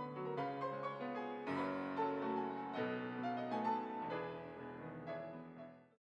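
Yamaha art-case grand piano, the $300,000 instrument, playing a fast classical passage with many quick notes. The sound cuts off abruptly just before the end.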